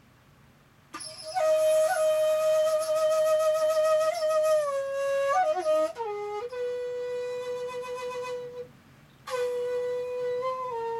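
Homemade C4 bamboo xiao, an end-blown vertical flute with six front finger holes and no thumb hole, playing a slow melody. It starts about a second in with long held notes decorated by quick grace notes, steps down to lower notes, stops briefly for a breath near the end, then carries on.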